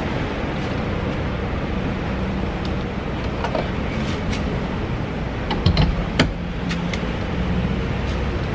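Steady rumble of vehicle engines and traffic at a petrol station, with a few sharp clicks about five and a half to six seconds in.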